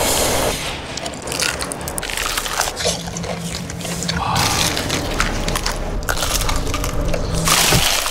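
Repeated crisp crunching of someone biting into crunchy fried chicken, a quick run of sharp cracks throughout.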